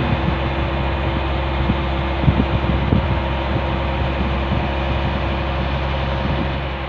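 Small fishing boat's engine running steadily at a constant note, over a haze of wind and water noise, with a few brief knocks.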